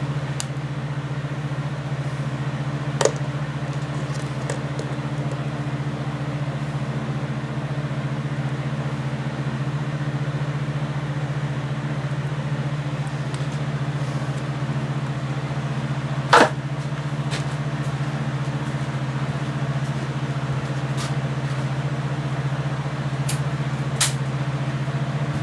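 Steady low machine hum, with a few light clicks and taps, the sharpest about sixteen seconds in.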